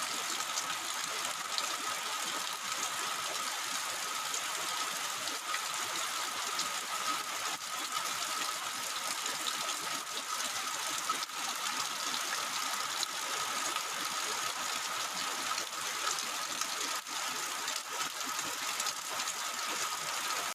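Heavy tropical rain falling steadily, a dense even hiss with a faint high steady tone running underneath.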